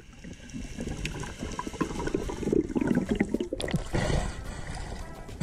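Underwater water noise around a diver's camera: gurgling and bubbling with scattered small clicks. About four seconds in the sound changes to a brighter splashing wash as the camera comes up through the sea surface.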